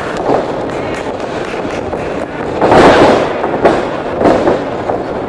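Wrestlers' bodies hitting a wrestling ring mat: a loud, booming slam about three seconds in, with lighter thuds before and after it.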